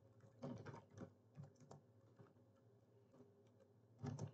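Computer keyboard typing, faint, in short runs of keystrokes, with a louder run near the end.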